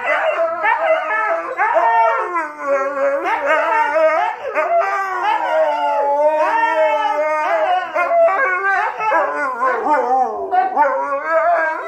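Husky howling and woo-ing in a long unbroken run of wavering, talk-like howls that rise and fall in pitch, with a steadier drawn-out howl in the middle.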